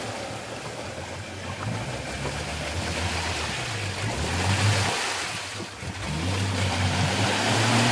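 Jeep Wrangler YJ engine working through a deep ford, its revs rising and falling, with water splashing and sloshing around the jeep. The vehicle has no snorkel and is deep enough that water is getting high.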